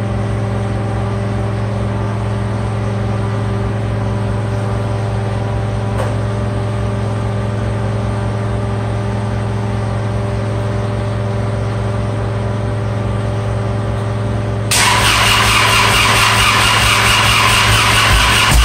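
Pressure washer running: its small petrol engine drones steadily, and about 15 seconds in, a loud hiss of the spray starts suddenly.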